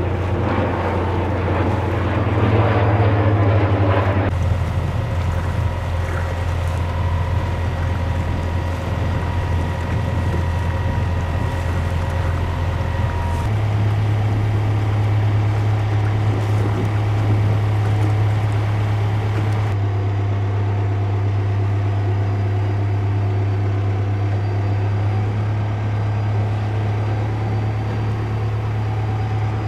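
Steady low hum of a motorboat engine with wind and water noise. The sound shifts abruptly several times.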